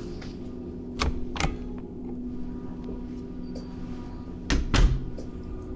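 A few sharp knocks, two about a second in and a heavier cluster near the end, over a steady low hum.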